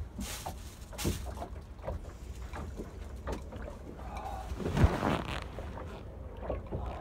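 A boat rocking at its mooring in high wind: scattered knocks and creaks from the hull and fittings over a steady low rumble of wind. A louder clunk with a rustle comes about five seconds in.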